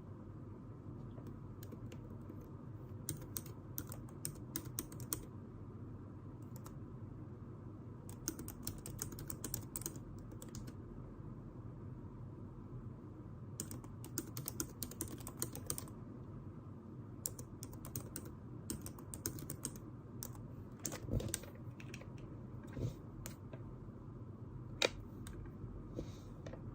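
Bursts of light, rapid clicking like typing on a keyboard, each run lasting a few seconds with pauses between, over a steady low room hum. Near the end come a few duller knocks and one sharper click.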